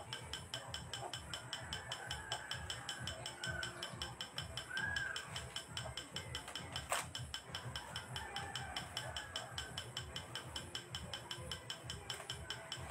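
Rapid, regular mechanical clicking, several clicks a second and unbroken, with one sharper click about seven seconds in.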